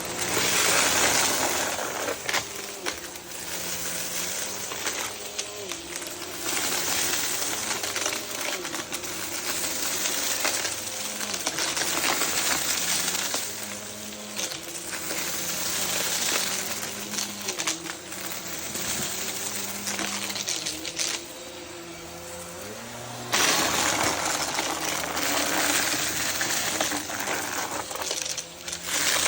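Vacuum cleaner running and sucking up small hard debris that rattles and clinks through it, the level rising and falling from pass to pass. It eases off for a couple of seconds about three-quarters of the way in, then comes back loud suddenly.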